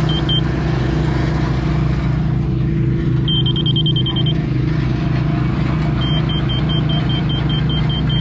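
Diesel engine of a heavy construction machine running steadily under load, with its backup alarm beeping in two runs: briefly about three seconds in, then again from about six seconds in.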